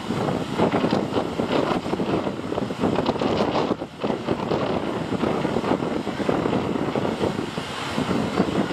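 Strong wind buffeting the microphone, with a fishing boat's engine running underneath. It drops off briefly about four seconds in.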